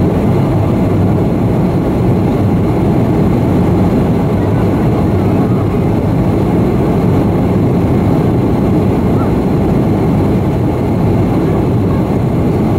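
Steady cabin noise of an Antonov An-158 regional jet in flight: a dense, unbroken rumble of its Progress D-436-148 turbofan engines and rushing air, heard from a seat beside the engine.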